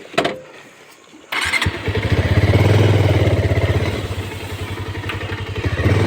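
A click, then a vehicle engine starting with a sudden catch about a second in and running at a steady fast idle with even firing pulses.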